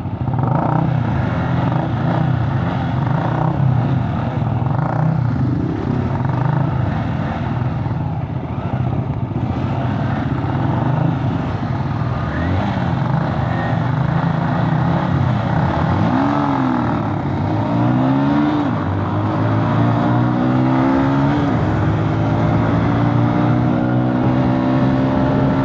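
Small single-cylinder sport motorcycle engines, a Honda CB190R and a Yamaha R15, accelerating hard through the gears in a street drag race. The engine pitch climbs and drops with the gear changes several times in the second half, with wind rushing over the helmet-mounted microphone.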